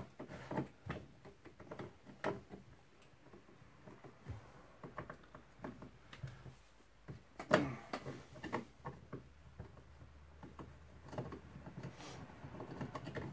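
Irregular light clicks and knocks of tools and chainsaw parts being handled during disassembly, with one louder knock about halfway through.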